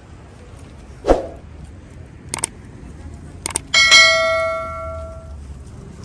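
A dull knock, two quick double clicks, then a metal object struck once, ringing with several clear tones that fade over about a second and a half.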